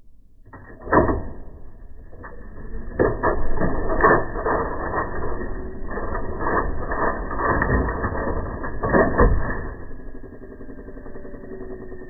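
Vintage National Model 1500 cash register's mechanism clattering: a quick irregular run of metal clicks and clacks from its keys, levers and gears, with the loudest clacks near the start and about nine seconds in, easing to a quieter steady mechanical sound near the end.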